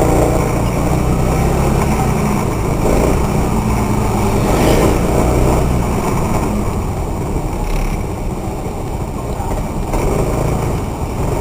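Motorbike engine running steadily among dense city traffic, with other vehicles' engines and tyre noise around it.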